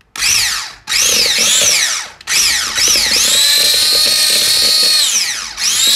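Electric hand mixer beating an egg into choux pastry dough, its motor whining loudly. The whine rises and falls in pitch, holds steady for a couple of seconds in the middle, and stops briefly a few times.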